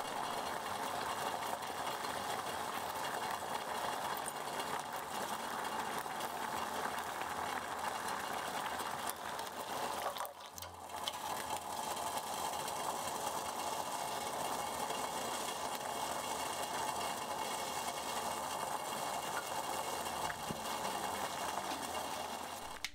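Dashi and then soy-and-mirin sauce boiling hard in a yukihira saucepan, a steady dense bubbling and crackling, as the sauce for agedashi tofu is reduced. The sound breaks off briefly about ten seconds in and then carries on.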